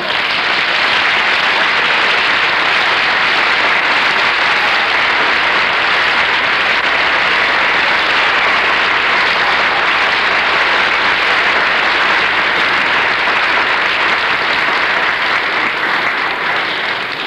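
Audience applauding steadily, a dense sustained clapping that dies away near the end.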